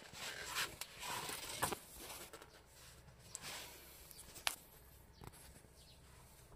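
Rustling and scraping handling noise from a cotton-gloved hand working in the engine bay and twisting a spin-on oil filter loose by hand, with a few sharp clicks, the sharpest about two-thirds in.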